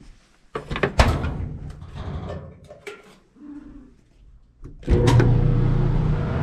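A few knocks and clicks at the front of a Kenmore 70 Series clothes dryer, then about three-quarters of the way in its motor starts and runs with a steady hum. The dryer turns on but the drum doesn't spin, which probably means a broken drive belt.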